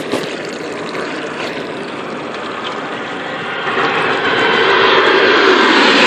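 Boeing 737 jet airliner passing low overhead, its engine noise a steady rush that grows louder about four seconds in.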